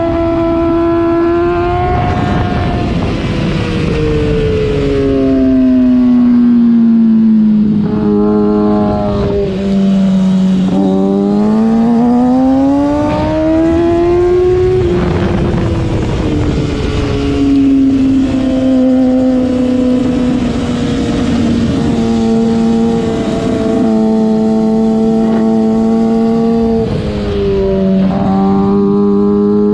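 Sport motorcycle engine at speed on a track lap: its pitch rises and falls with the throttle and steps abruptly at several gear changes, climbing steadily around the middle and dropping with downshifts near the end. Wind rushes over the microphone throughout.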